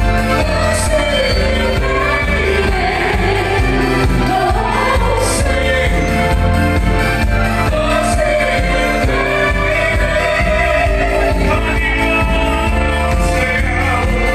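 Live band music with a singer: a sung melody over a steady bass line, with cymbal strikes now and then.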